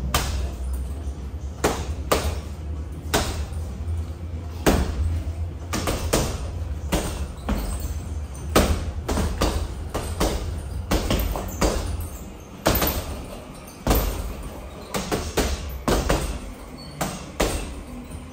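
Boxing gloves punching a reflex ball and a heavy bag: irregular sharp smacks and thuds, several a second at times, over a low hum that fades about twelve seconds in.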